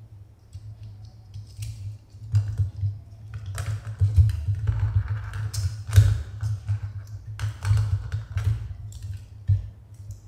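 Plastic parts of a pan-tilt Wi-Fi security camera being handled and taken apart by hand: a run of irregular clicks, taps and light knocks, busiest from the middle on, over a steady low hum.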